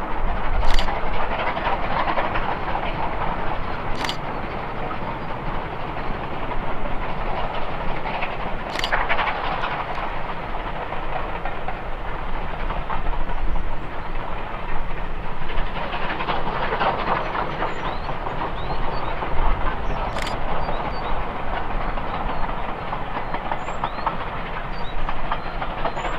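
Steam-hauled train running along the line in the distance: a steady running noise that swells a few times, with occasional sharp clicks.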